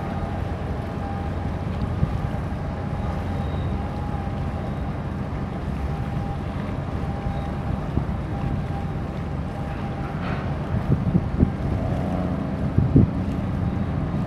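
A boat's engine running with a steady low rumble while under way, wind buffeting the microphone, with a few stronger gusts near the end.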